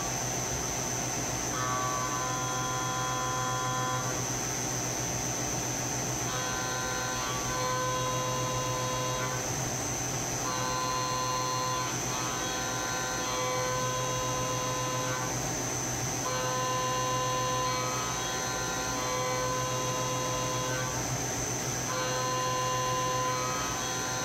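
SYIL X7 CNC mill's spindle running with a steady high whine while a small end mill cuts a metal clamp jaw; the cutting tone comes in for a pass of a couple of seconds, drops out briefly, and starts again several times. A steady low hum from a rotary phase converter runs underneath.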